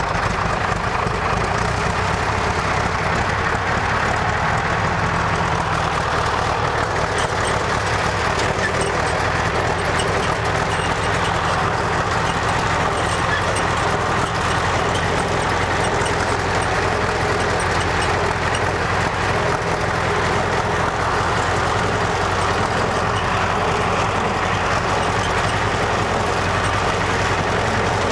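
Tractor engine running steadily in gear while spraying liquid fertiliser, with the sprayer's pump running.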